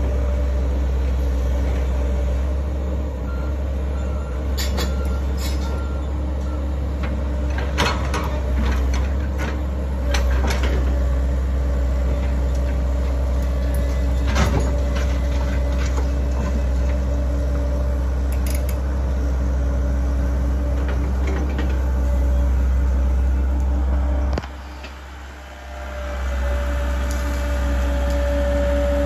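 Komatsu hydraulic excavator's diesel engine running steadily, with several sharp clanks and knocks as its bucket digs into concrete and stone rubble. Near the end the sound briefly dips, then the engine runs on with a steady whine.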